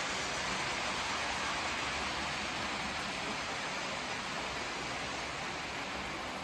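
Several Hornby OO gauge model trains running on the layout at once: the steady whirr and rolling noise of their small motors and metal wheels on the track.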